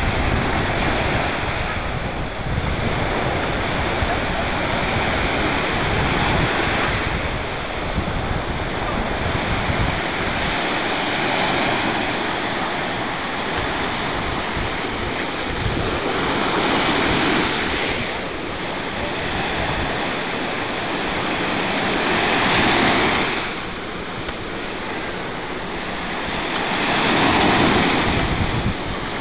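Sea surf breaking and washing up a beach, the rush swelling louder every few seconds as waves come in, with wind rumbling on the microphone in the first part.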